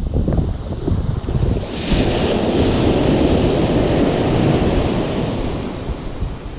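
Small surf waves breaking on a sandy beach: a wave crashes and washes up the shore about two seconds in, then fades near the end, with wind buffeting the microphone throughout.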